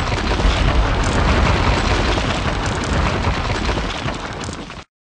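Intro sound effect of a wall blasting apart and crumbling: a dense explosive crash with a heavy low rumble that slowly fades and cuts off sharply near the end.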